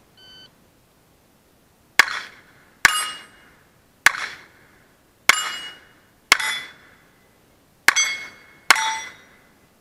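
Seven pistol shots at steel plates in irregular succession, about a second apart. Each shot is followed by the hit plate ringing with a clear metallic tone for about half a second.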